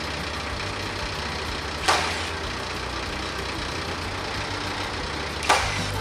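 TYM T474 tractor's diesel engine idling steadily, with two sharp nail-gun shots about two seconds in and near the end as nails are driven into the roof purlins.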